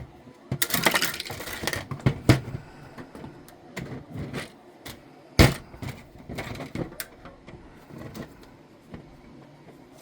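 Hard 3D-printed plastic parts handled and set down: scattered clicks, light scraping and knocks, with one sharper knock about five and a half seconds in.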